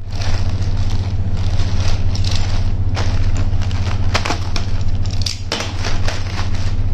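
A plastic courier mailer crinkling and rustling in quick crackles as it is slit with a box cutter and pulled open by hand, over a steady low hum.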